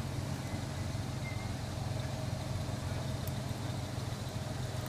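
Toyota 60 series Land Cruiser engine running steadily at low revs as the truck crawls slowly through a washout.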